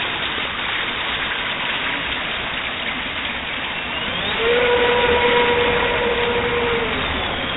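Radio-controlled model boats running on a pool, with a steady hiss of water and motor noise. From about four and a half seconds in, a steady tone holds for about two and a half seconds and then stops.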